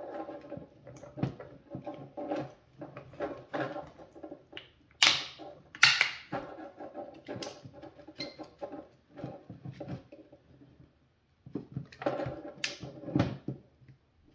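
Plastic mirror housing and adjuster parts being handled and pried apart with hand tools: a run of small clicks, rattles and scrapes, with a few louder sharp snaps about five and six seconds in and again near the end.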